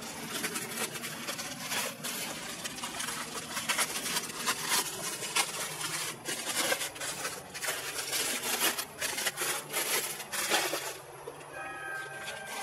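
Bubble wrap and plastic packaging crinkling and rustling as it is handled and pulled away, with many small crackles. Near the end the rustling stops and a steady tone of several pitches starts.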